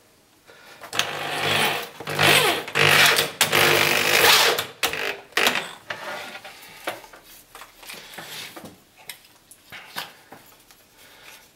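Electric drill with a 45 mm hole saw cutting a hole through a polyethylene sheet. The motor runs for about four seconds and stops, followed by scattered light knocks as the tool is handled.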